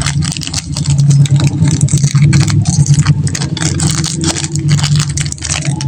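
Candy wrappers crinkling and crackling as they are handled and unwrapped, in quick irregular crackles, over a steady low rumble.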